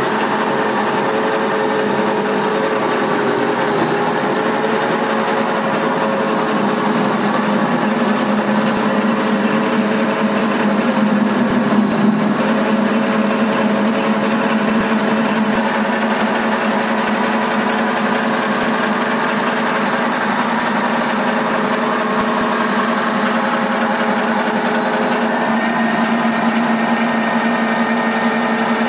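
Electric animal feed crumbler running steadily under load while it crushes feed, giving a loud, even machine hum with a few held tones.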